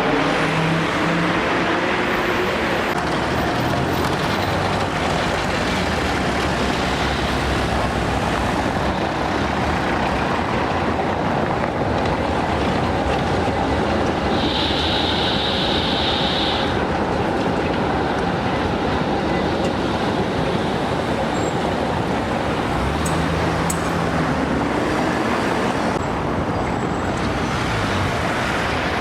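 An electric tram running through city traffic, with a steady noise of wheels and motor. A high squeal lasts about two seconds around halfway, and a motor whine rises near the end.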